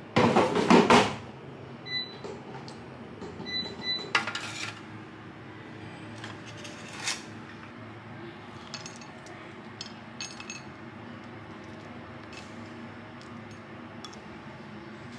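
Kitchen handling sounds: a loud clatter lasting about a second as the air fryer is loaded, then short electronic beeps from the air fryer's controls being set, twice. After that, small taps and clicks of toppings being placed and sprinkled onto toast on a ceramic plate.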